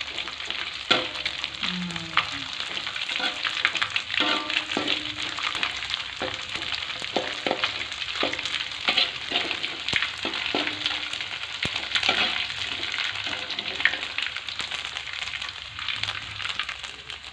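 Small dried anchovies (teri) sizzling and crackling in hot oil in a wok, stirred with a metal spatula that scrapes and knocks against the pan now and then.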